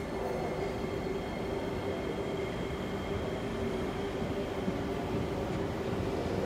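Singapore MRT train on the North-South Line at a station platform, giving a steady rumbling noise with a held hum over it and no sudden knocks; it grows slightly louder near the end.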